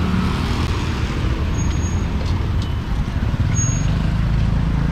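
Steady street traffic rumble of passing vehicle engines, with a couple of brief high squeaks.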